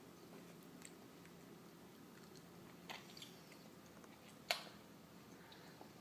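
Cherries being chewed and bitten: faint, soft wet clicks, with one sharper click about four and a half seconds in.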